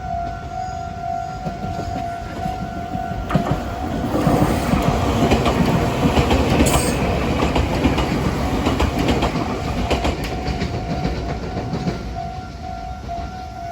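Japanese level-crossing warning bell ringing in a steady, pulsing two-note pattern while a Meitetsu Inuyama Line electric train passes over the crossing. The train's rumble and wheel clatter build from about three seconds in, are loudest in the middle and ease off near the end, with the bell still sounding over it.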